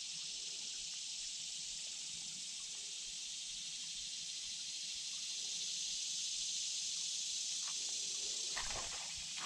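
Steady high-pitched insect chorus, swelling slightly in the middle, with a short low thump near the end.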